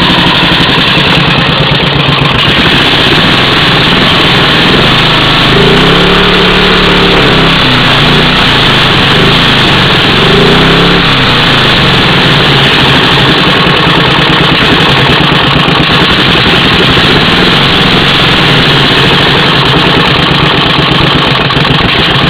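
12.5 hp Briggs & Stratton single-cylinder engine on a riding lawnmower, running on choke through a John Deere 111 muffler. It runs steadily and twice speeds up and drops back, around six and ten seconds in.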